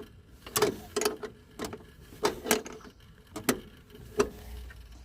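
Irregular mechanical clicks and knocks, about two or three a second, as the clutch hydraulics of a Toyota Hilux are worked on.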